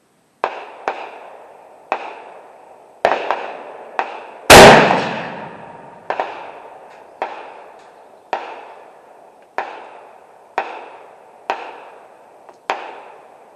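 A single very loud rifle shot about four and a half seconds in, from a Howa 1500 in 6.5 Creedmoor with a muzzle brake, firing a load-development round, with a long echo after it. Around it, about a dozen fainter sharp shots, roughly one a second, each with a short echo.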